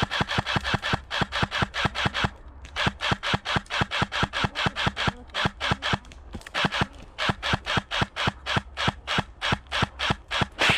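Airsoft rifle firing long rapid strings of shots, about seven a second, with short breaks about two and a half seconds in and around the middle.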